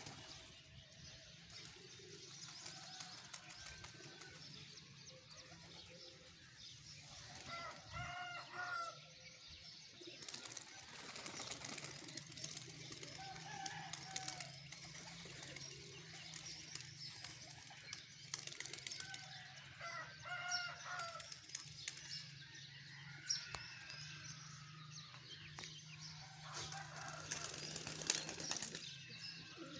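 Domestic pigeons flapping their wings now and then around the loft, faint and intermittent, with a short bird call twice.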